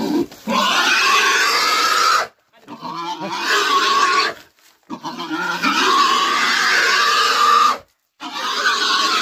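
A pig squealing loudly in four long screams with short breaks between them, as it resists being pulled along on a rope.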